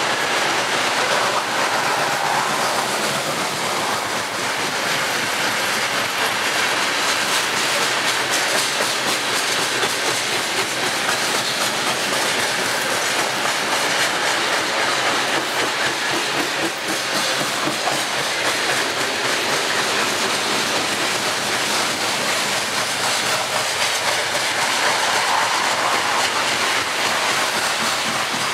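Loaded coal cars of a freight train rolling past, a steady noise of steel wheels on the rails.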